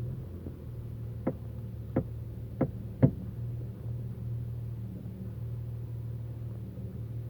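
Four sharp clunks from the front end of an Audi A4 B7 3.0 TDI quattro, coming about every half second to second, the last the loudest, over the steady low running of its V6 diesel. It is the unexplained front-end clunk that shows up only once the car is warm, on hard braking or reversing with the steering turned right.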